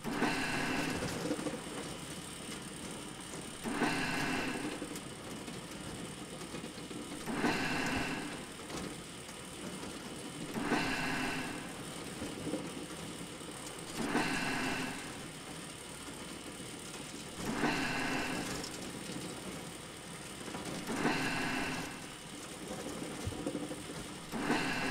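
Factory machinery sound effect running steadily, with a louder mechanical burst of about a second repeating every three and a half seconds, in time with a production-line press cycle.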